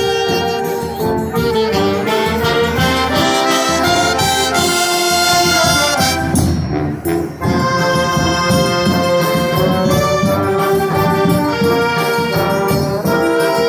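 Brass-led wind band playing a song arrangement, trumpets and trombones holding full chords over a steady beat, with a brief drop in the sound about halfway through.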